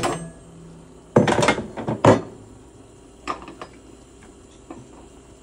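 Stovetop clatter as a gas range is wiped down with a cloth: a burst of rattling and knocking from the metal grates about a second in, then a few lighter clicks.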